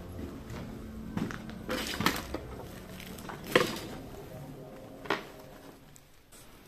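Footsteps crunching over rubble and debris on a concrete floor, with several sharp clatters and knocks, the loudest about three and a half seconds in.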